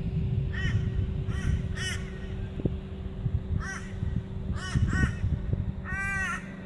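Crows cawing: about eight short, harsh caws spaced irregularly, with one longer, drawn-out caw near the end, over a steady low rumble.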